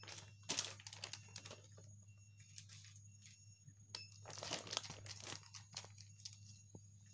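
Two cats eating from plastic bowls: close, irregular chewing and lapping sounds with small crinkly clicks, over a low steady hum.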